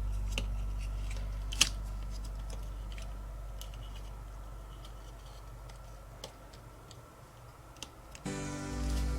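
Background music fading down, with a few separate sharp clicks over it, the loudest about a second and a half in; a new passage of music starts near the end.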